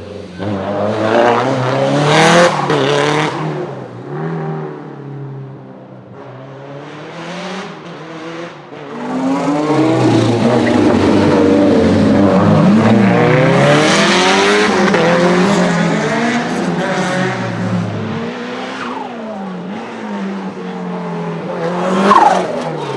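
The turbocharged 2.0-litre four-cylinder engine of a 500 hp Lancia Delta HF Integrale Evo 2, revved hard and backed off over and over, its pitch climbing and falling repeatedly, with a long loud stretch of hard acceleration in the middle.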